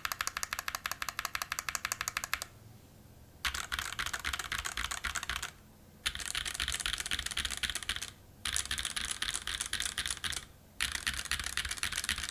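Fast typing on a custom mechanical keyboard with lubed Haimu x Geon White switches in a stainless steel plate and GMK keycaps: rapid keystroke clacks in several runs of a couple of seconds each, broken by short pauses.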